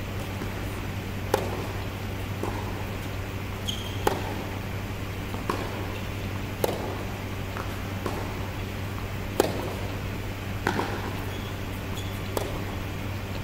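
Tennis rally on an indoor hard court: racket strokes and ball bounces about every one and a half seconds, each echoing in a large hall, over a steady low hum.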